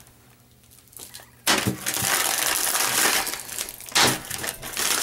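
Near quiet for about a second and a half, then a sudden loud crushing, crinkling noise that keeps going, with a couple of sharper hits in it.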